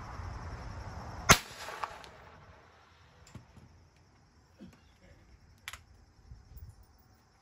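A single shot from an Austrian M1854 Lorenz percussion rifle-musket firing a guncotton cartridge, about a second in, followed half a second later by a smaller crack. Then a few faint clicks and knocks as the rifle is reloaded and capped.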